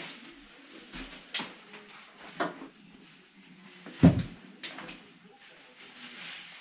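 A few sharp knocks and thumps in a room, about one a second, the loudest and deepest about four seconds in.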